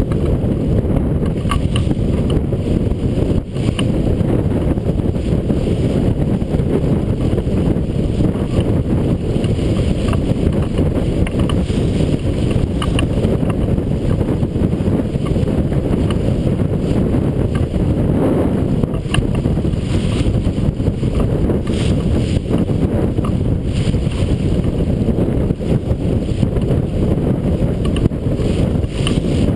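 Strong wind buffeting the microphone in a steady low rumble, with water rushing and splashing along the hull of a sailboat heeled over and sailing hard.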